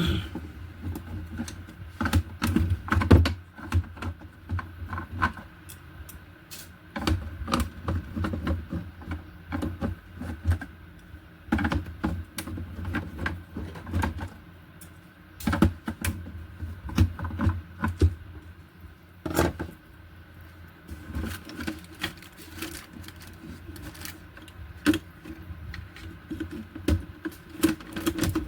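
Irregular clicks, taps and knocks of hands working plastic parts while removing the speakers from an LED TV, over a steady low hum.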